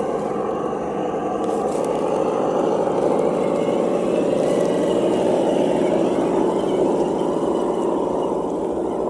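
Simulated engine sound from a Reely sound module, played through the small speaker of a Traxxas TRX4 RC crawler, running steadily and swelling in the middle as the truck is throttled up. A faint rising whine from the electric drive comes in under it as it speeds up.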